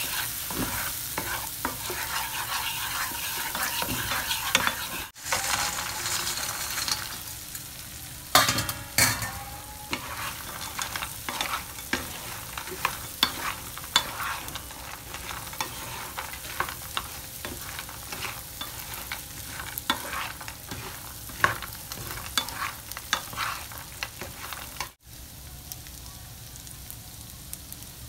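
Sauce sizzling in a nonstick frying pan while a wooden spatula stirs and scrapes it, with many sharp clicks of the spatula against the pan; later, cubes of fried tofu are tossed in the hot sauce. Near the end the stirring stops and only a quieter, steady sizzle remains.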